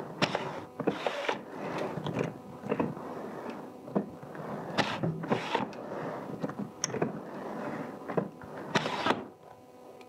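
Rovin Ecospin hand-cranked washing machine being cranked through its rinse: a steady churning with irregular plastic clacks and knocks from the drum and lid, easing off about nine seconds in.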